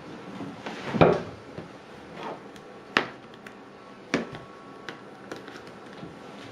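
Apple TV retail box being handled: a few separate knocks and taps, the loudest about a second in, then lighter clicks.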